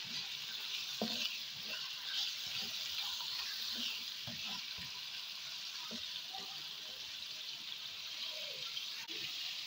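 Diced chicken frying in hot oil in a pan, with a steady sizzling hiss. A spatula stirring the pieces adds a few light knocks and scrapes.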